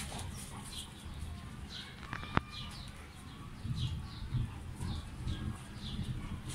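Small birds chirping repeatedly, short falling chirps about two a second, over a low rumble. A single sharp tap a little over two seconds in.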